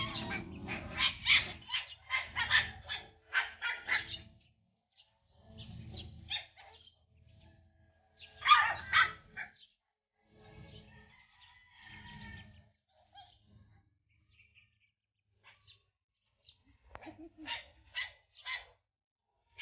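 Puppies play-fighting with a larger dog: quick runs of short, high yips and squeals, about three a second, with one louder yelp about halfway through.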